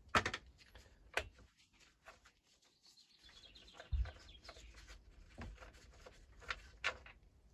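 Scattered sharp clicks and taps of a screwdriver and small screws being worked out of a petrol hedge trimmer's casing, about half a dozen in all, the loudest right at the start and about a second in. A faint high chirp runs through the middle, like a bird in the background.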